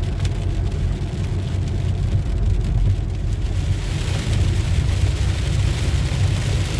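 Car cabin noise while driving: a steady low rumble of engine and road, with a hiss that grows stronger about four seconds in.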